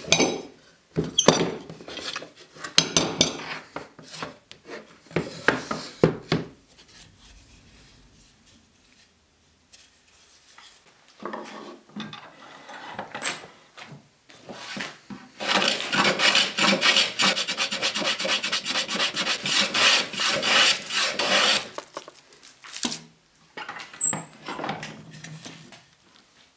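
Iron G-clamps knocking and clicking as they are handled and tightened on a glued veneer stack. Later comes a long run of rapid scraping strokes of a hand tool on the wood, the loudest part, lasting about six seconds.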